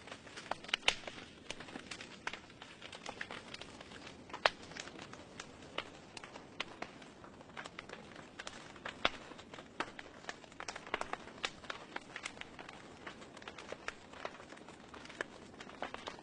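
Wood fire in a fireplace crackling, with irregular sharp pops and snaps over a soft steady hiss.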